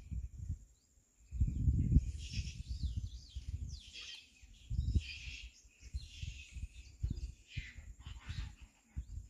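Wild birds chirping and calling repeatedly, with low rumbling gusts of wind buffeting the microphone, loudest about two seconds in.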